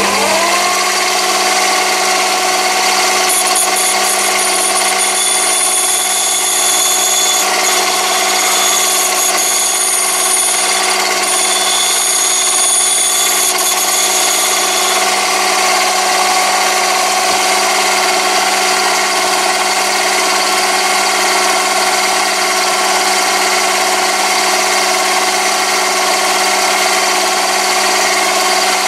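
Chinese mini lathe's motor and spindle running steadily, turning a diamond lapping wheel, with a strong hum that rises in pitch as it comes up to speed at the start. From about three seconds in to about halfway, a high whine joins it while a carbide tool tip is pressed against the wheel and lapped to a radius.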